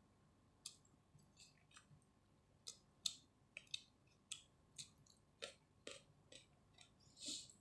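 Close-up eating sounds of chicken biryani being chewed: a run of short, sharp mouth clicks and smacks, about two a second, with a longer wet smack near the end.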